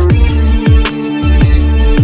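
Background electronic music with a steady beat: deep kick drums about every two-thirds of a second over sustained bass, with hi-hat ticks above.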